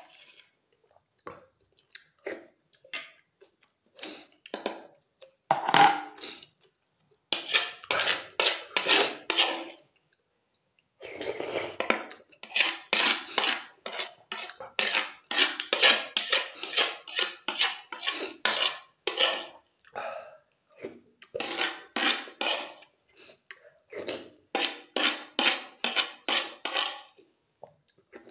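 A steel spoon and fork scraping and clinking against a plastic plate in runs of quick strokes, scooping up the last of the noodles.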